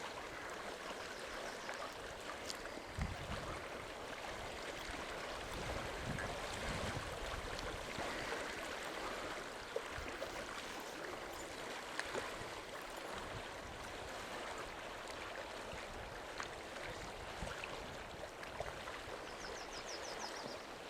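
Steady rushing noise of lake water washing at the shore, with a few faint clicks and knocks scattered through it.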